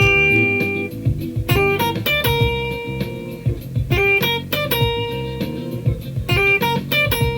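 Funk band music: short chord stabs repeating every second or so over a busy bass line, with guitar prominent.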